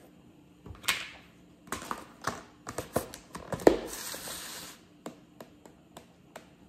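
Handling noise: a series of sharp clicks and knocks, then a short rustle about four seconds in, followed by a few lighter ticks.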